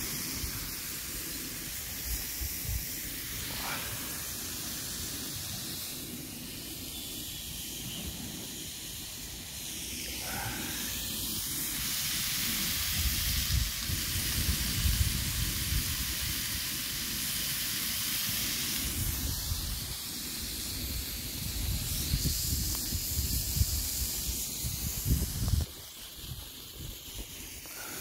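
Wind gusting on the microphone, rumbling irregularly over a steady hiss; the gusts are strongest in the middle and die down abruptly near the end.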